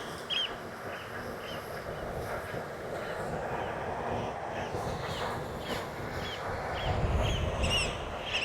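Eurasian oystercatchers giving sharp, repeated piping calls, about two a second, while mobbing a small quadcopter drone whose steady propeller hum runs underneath.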